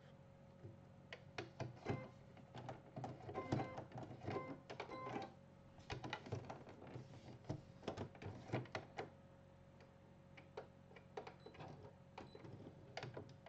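Plastic clicks and clatter of an embroidery hoop being slid onto and locked into the carriage of a Brother BP1530L embroidery machine, dense at first and then only a few scattered clicks, over a low steady hum.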